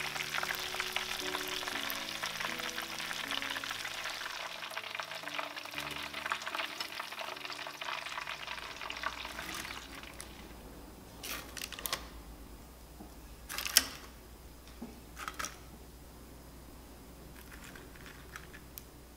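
Breaded oysters deep-frying in oil, a dense crackling sizzle that fades out about ten seconds in. After that come a few short, sharp clicks.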